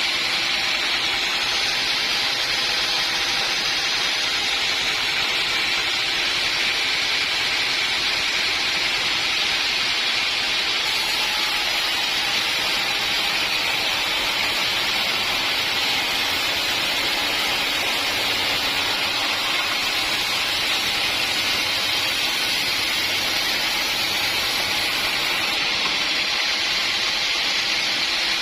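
Portable sawmill running, a steady, unbroken hiss of machinery.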